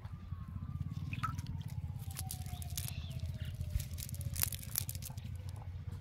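Scattered clicks, ticks and rustles of a nylon cast net being handled as fish are picked out of its mesh. Under them runs a low steady rumble, and a faint tone glides slowly down in pitch throughout.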